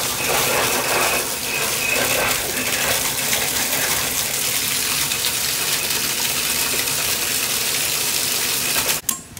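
Bathtub spout running at full flow, water pouring and splashing into the tub; the sound cuts off suddenly near the end.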